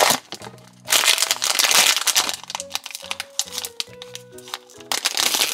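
Plastic wrapping crinkling in bursts as a small toy blind pack is opened by hand, over light background music.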